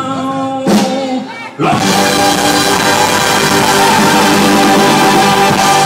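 Live big band with a horn section playing a short hit about a second in, then, after a brief dip, a loud held chord that lasts to the end: the song's final chord.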